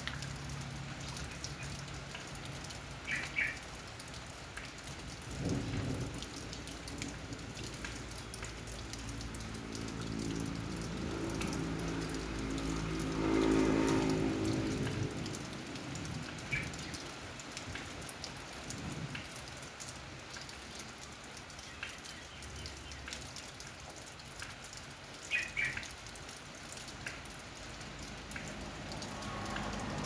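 Steady rain falling, with many small drop ticks. Around the middle a low rumble swells and fades, and two brief high chirps sound near the start and near the end.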